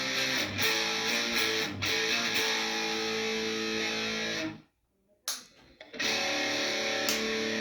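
Epiphone SG Modern Figured electric guitar played through an amp, strummed chords and ringing notes. The playing stops for about a second and a half a little past the middle, then starts again.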